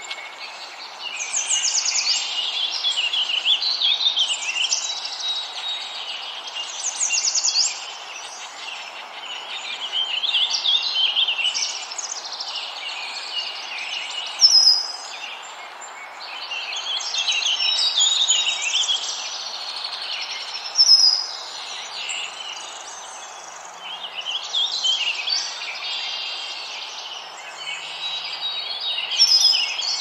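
A warbler singing: runs of quick, high twittering phrases a few seconds long, separated by short pauses, over a steady hiss of outdoor background noise. A couple of brief, sharper notes stand out above the rest.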